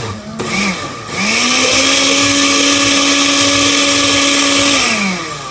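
Countertop blender blending a blueberry, almond-milk and protein-powder smoothie: the motor gives a short pulse, then spins up about a second in, runs at a steady pitch, and winds down with a falling pitch near the end. It is mixing in the chocolate collagen protein powder that has just been added.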